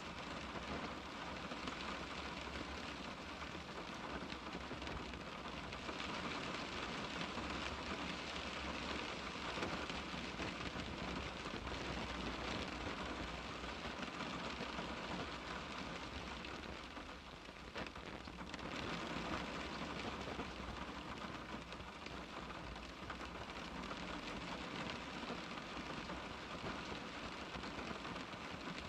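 Steady rain falling on a car's glass, a dense even patter with a brief slight easing near the middle.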